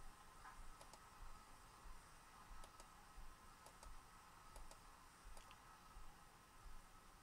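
Near silence broken by several faint, sharp computer-mouse clicks, some in quick pairs.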